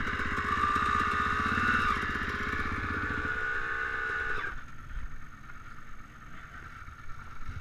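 Honda dirt bike engine running steadily under the rider, then its note drops away sharply about four and a half seconds in, leaving only a faint engine sound.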